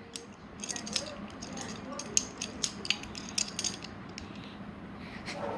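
Butterfly knife being flipped: quick, sharp metallic clicks and clacks as the handles swing open and shut around the blade, coming in irregular bunches mostly during the first four seconds.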